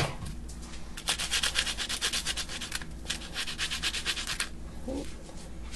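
A cut garlic clove rubbed briskly back and forth over a slice of crisp toasted French bread: a fast, dry scraping, about five strokes a second, that stops about four and a half seconds in.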